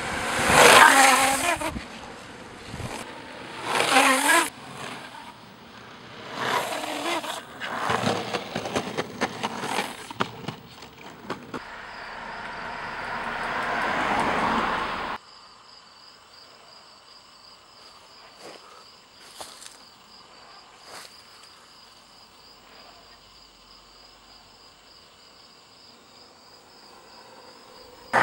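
Longboard wheels on asphalt: several loud sliding bursts in the first half, then a rolling noise that swells and cuts off suddenly about halfway. After that a steady, wavering high insect buzz, with a few faint ticks.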